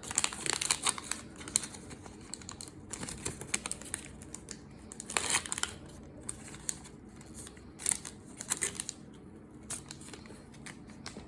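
Cardboard trading cards being handled and flipped through by hand: a run of irregular soft clicks and rustles, with a few sharper card snaps.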